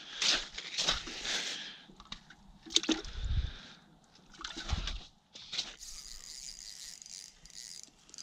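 Irregular crunching and sloshing as the angler moves on snowy pond ice and handles water in the fish bucket, with a sharp knock about three seconds in; from about six seconds on, only a faint steady hiss remains.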